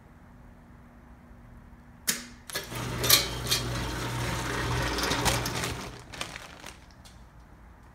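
Belco impulse sealer: a sharp clunk about two seconds in, then the conveyor runs for about four seconds with a low motor hum and rattle as it carries the film-wrapped package out, stopping near the end.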